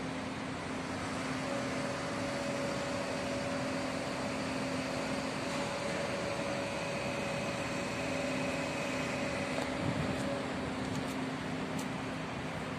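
Steady din of construction-site machinery: an even wash of noise with several steady hums at different pitches coming and going, and a few light clicks near the end.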